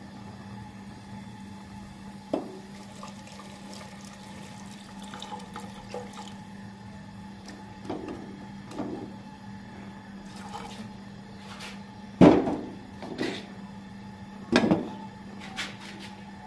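Water poured into a metal cooking pot of raw mango pieces, then a spatula stirring and knocking against the pot, with a few louder knocks near the end as the glass lid is set on. A steady low hum runs underneath.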